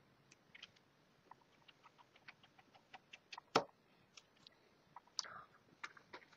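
Faint, irregular small clicks and ticks of a small screwdriver and tiny screws against a mobile phone's case during reassembly, with one sharper click about three and a half seconds in.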